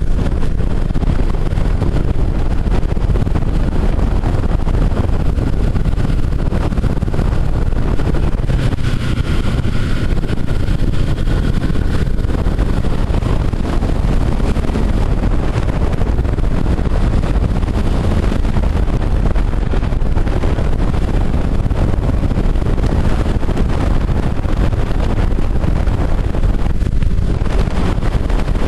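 Snowmobile under way, its engine running beneath loud, steady wind buffeting on the microphone.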